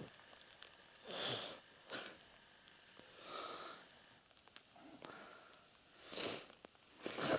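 A person breathing and sniffing close to the microphone: about six short, irregular breaths.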